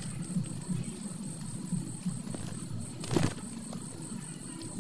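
A fast, steady, high-pitched insect trill over a low uneven rustle, with one louder scuff about three seconds in.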